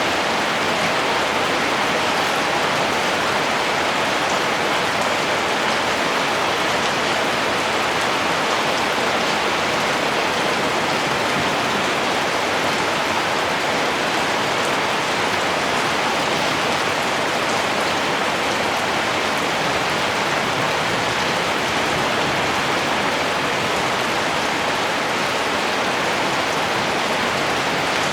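Heavy rain falling, a steady, even hiss that never changes in strength.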